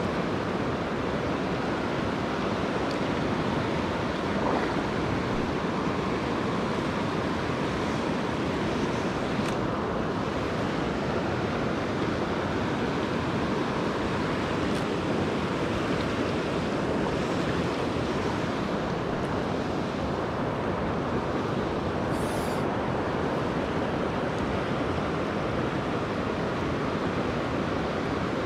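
Steady rushing of a fast river running over riffles close to the microphone, an even noise that does not change.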